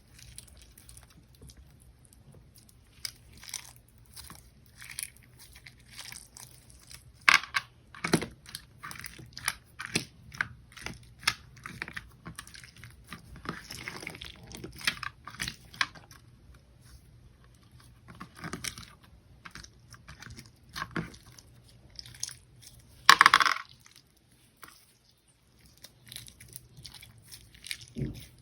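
Clear slime packed with too many beads being squeezed and worked by hand: irregular crunchy crackling and clicking from the beads, with two louder crunches, one about seven seconds in and another about twenty-three seconds in.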